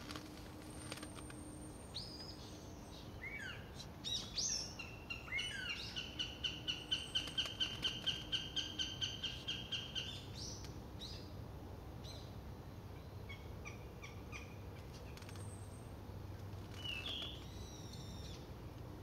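Northern goshawk calling a rapid run of evenly spaced calls, about three or four a second, for about five seconds starting some five seconds in. Short chirps and whistles of smaller birds come before and after it.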